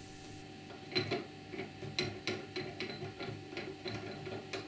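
Light metallic clicks, about three a second and unevenly spaced, from the ridged steel sleeve of a drill-press chuck being turned and handled by hand in a vise's padded jaws.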